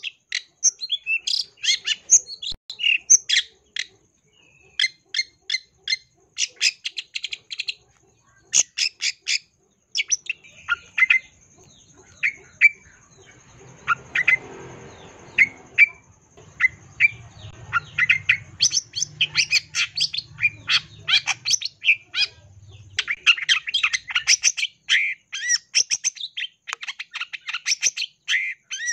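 Long-tailed shrike (cendet) singing its mimicry-filled 'full isian' song: quick bursts of short, sharp high notes separated by brief pauses, thinning out midway and dense again toward the end.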